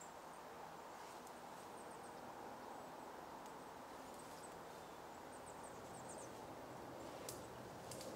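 Faint outdoor ambience: a steady low rush with small birds' high, thin calls scattered throughout, including a quick run of them about six seconds in, and two sharp clicks near the end.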